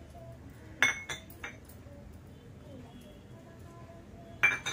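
Kitchen utensils and dishes clinking: three sharp clinks about a second in, then a louder pair near the end.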